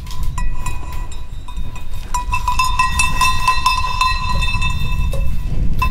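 Cowbells on grazing livestock clanking continuously, many small strikes, over a steady low rumble. They get louder about two seconds in.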